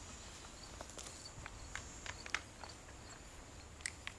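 Faint, irregular footsteps and light clicks as a person walks up, over a faint steady high-pitched hum.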